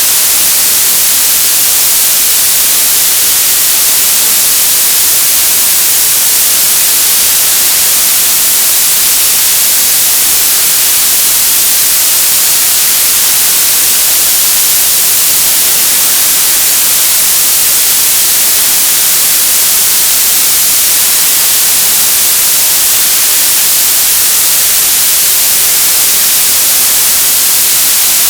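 Television static: a steady, loud hiss of white noise, even and unchanging, strongest in the treble.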